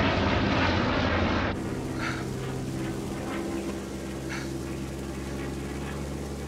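Propeller-driven piston aircraft engines running loud, cutting off suddenly about a second and a half in to a quieter, steady engine drone heard from inside the cockpit, with a few faint short chirps.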